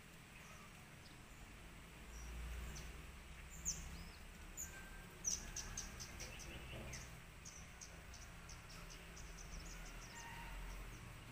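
Faint outdoor ambience with a run of short, high chirps starting a few seconds in and repeating several times a second, from a small animal such as an insect or bird; a low rumble comes and goes twice.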